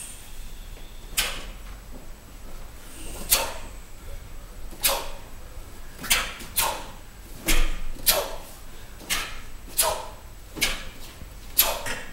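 Taekwon-Do uniforms (doboks) snapping crisply with the strikes and blocks of a pattern, about a dozen sharp snaps at uneven spacing, some in quick pairs.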